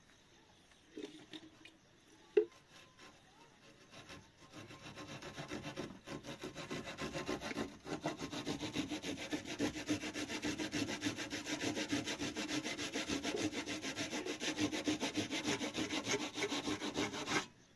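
Saw cutting through wood in fast, even rasping strokes, starting about four seconds in, building up and stopping abruptly near the end. Before it, a single sharp knock about two seconds in.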